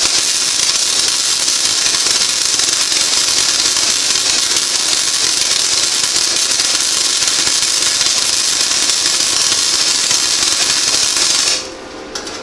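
Century FC-90 flux-core wire-feed welder's arc sizzling steadily on 22-gauge sheet steel, then cutting off abruptly just before the end.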